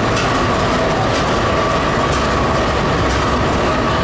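Amtrak P42DC diesel-electric locomotive with its 16-cylinder GE engine running close by: a loud, steady drone with a low rumble and a constant hum.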